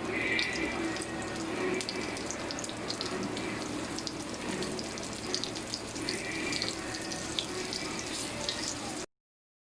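Flour-dredged chicken livers sizzling as they pan-fry in hot oil: a steady crackle with frequent small pops. It cuts off suddenly near the end.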